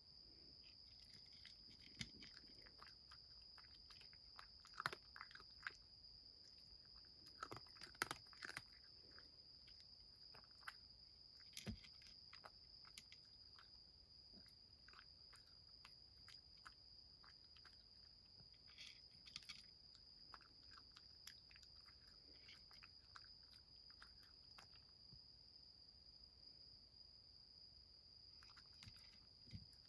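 Grey cat eating dry kibble from a wooden tray: faint, scattered crunches and clicks as it chews, with a few louder ones about 5, 8 and 12 seconds in. A faint steady high-pitched whine lies underneath.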